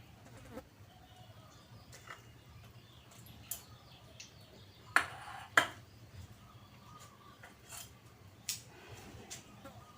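Scattered clinks and knocks of dishes and kitchen utensils being handled, with two louder knocks about five seconds in.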